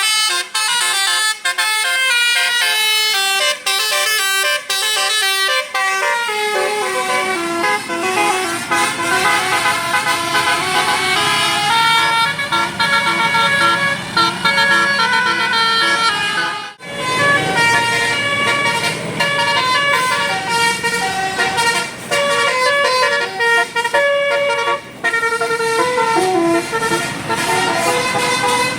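A bus's telolet basuri musical horn playing a melody of quick stepped notes, with engine rumble beneath for most of it and a brief break about two-thirds through.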